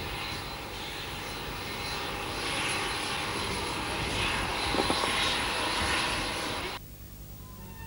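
Airplane engine noise: a steady broad rush with a thin high whine over it, cut off suddenly near the end.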